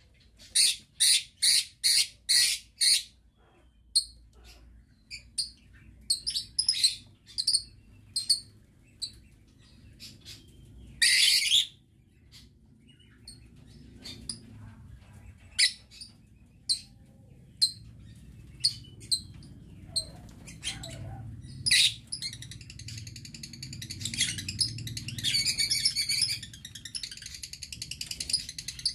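Lovebirds in an aviary chirping: a quick run of sharp, high chirps at the start, then scattered single chirps, then denser chattering over the last several seconds.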